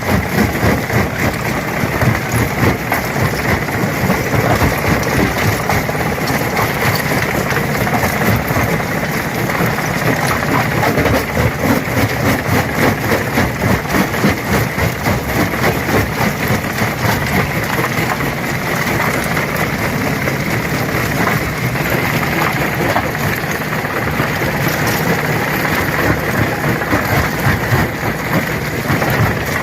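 Stone crusher running under load, a steady machine hum beneath a dense, continuous crackle and clatter of rocks being broken.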